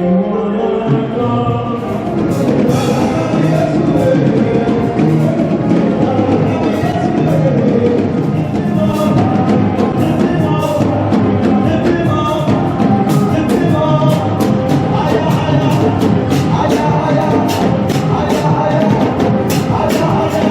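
Church music: a group of voices singing a hymn over drum and percussion accompaniment, with sharp percussive beats coming more thickly in the second half.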